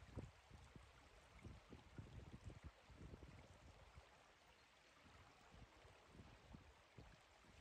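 Near silence: the faint, steady rush of the Ahr river flowing, with irregular soft low bumps.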